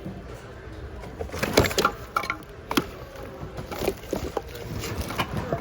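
Irregular knocks and clatters of hard household objects being handled and shifted while rummaging through a thrift-store bin, with a sharper knock about one and a half seconds in.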